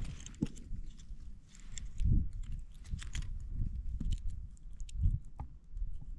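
Crunching of snow and ice with a few dull thumps and scattered sharp crackles, the sound of boots or gear moving on a snow-covered frozen lake.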